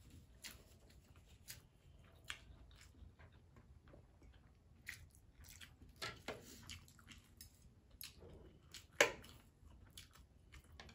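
Quiet eating sounds of spicy instant noodles being slurped and chewed, with small clicks of chopsticks and a fork against plates. One brief louder sound about nine seconds in.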